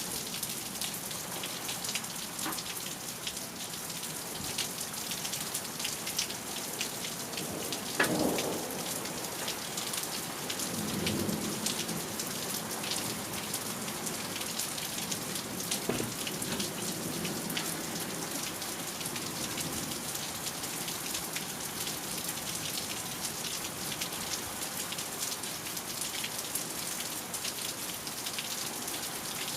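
Steady rain falling during a thunderstorm, with a sharp crack of thunder about eight seconds in that rolls into a low rumble, and a second, fainter crack and rumble a little later.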